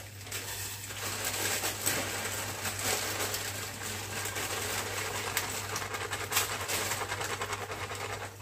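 A plastic instant-noodle packet crinkling and rustling, with small clicks and crackles as the noodles are handled, over a steady hiss and a low hum.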